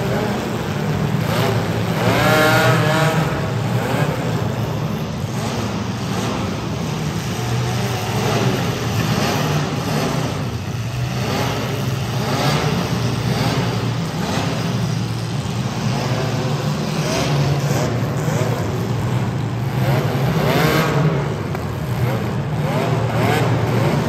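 Several compact demolition-derby cars' engines running hard and revving over a steady engine drone, with the biggest revs about two seconds in and again near the end.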